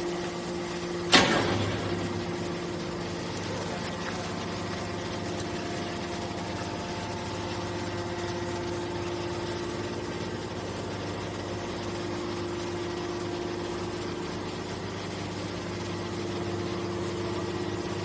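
Hydraulic scrap metal baler running with a steady hum as its ejection cylinder pushes a compressed metal bale out of the chamber. A single sharp bang about a second in is the loudest sound.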